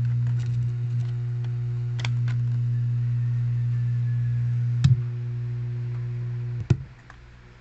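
Loud, steady electrical hum on the live-stream's audio, with a few sharp clicks; after the last click near the end the hum drops away sharply.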